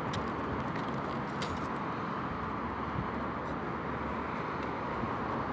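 Steady hum of distant road traffic, an even wash of noise with no single vehicle standing out.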